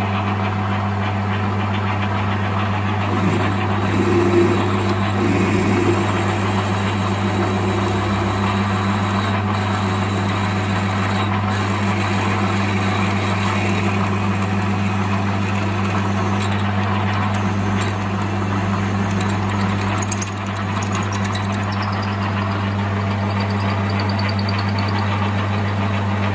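Metal lathe running steadily with a strong low hum while an 8.5 mm twist drill in the tailstock bores into a small metal part held in a collet chuck, enlarging a hole drilled earlier at 6.5 mm; a faint high whine comes in about 21 seconds in.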